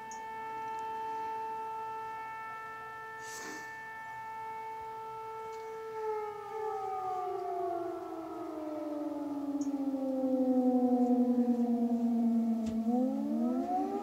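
Civil-defence air-raid siren sounding a steady tone, then slowly falling in pitch from about six seconds in, and rising again near the end. It is an air-raid warning.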